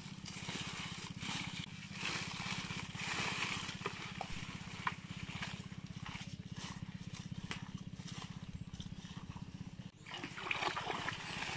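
Bare feet crunching and rustling through dry, dead water hyacinth leaves, with scattered sharp crackles, then wading and sloshing in shallow muddy water near the end.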